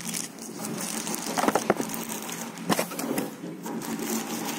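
Clear plastic bag crinkling and rustling as hands work it open around a small speaker, with a few sharp clicks about a second and a half in and again near three seconds.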